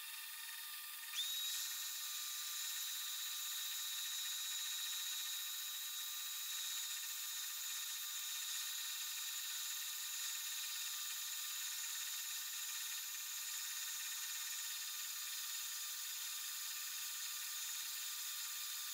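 Belt grinder running with a burl-wood knife handle pressed against the sanding belt: a steady high whine and hiss, with a higher whine coming in about a second in and holding.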